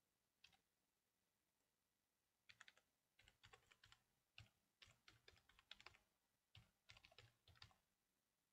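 Faint computer keyboard typing: a single keystroke, then after a pause quick runs of keystrokes in short bursts for about five seconds as a hostname is typed.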